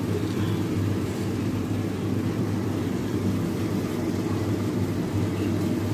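Steady low mechanical hum.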